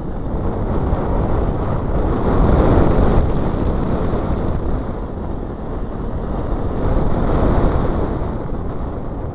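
Nissan Micra K11 being driven hard through a cone course: engine and road noise with heavy wind buffeting on the microphone. It swells louder twice, a couple of seconds in and again near the end.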